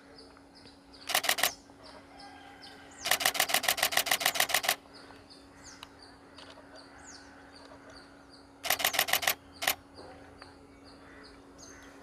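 Camera shutter firing in rapid bursts, about ten frames a second: a short burst, a longer burst of nearly two seconds, another short burst, then a single click. Small birds chirp faintly and a low hum runs steadily underneath.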